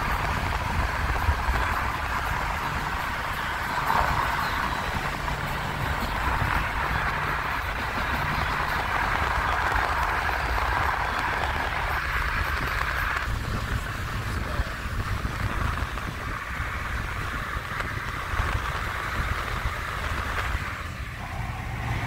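A car driving along a road, heard from inside: a steady low rumble with tyre and wind hiss, which eases a little about halfway through.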